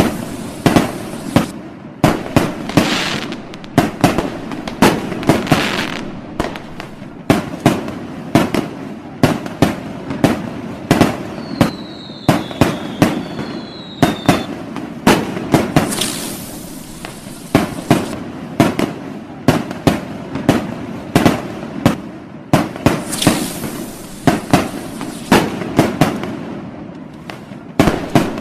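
Fireworks going off in a dense barrage of sharp bangs and booms, with crackling bursts that swell and fade several times. Two short falling whistles sound around the middle.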